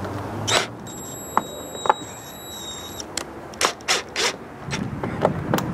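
Cordless drill/driver driving a screw back into aluminum trim on the trailer. Its motor gives a steady high whine for about two seconds, with sharp clicks and knocks before and after.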